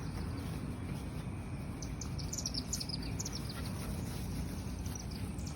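Birds chirping in quick runs of short high notes, mostly in the middle and again near the end, over a steady low rumble.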